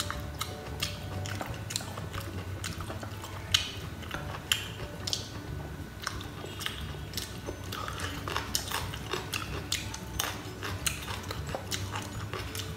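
Close-miked chewing, with frequent sharp, irregular crunches of crisp grilled rice crackers (bánh tráng nướng) eaten with boiled pork.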